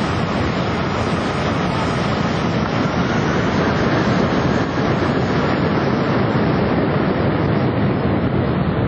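Departing jet airliner's engines at takeoff power, heard as a loud, steady rush of jet blast with a faint high engine whine. The blast buffets the microphone.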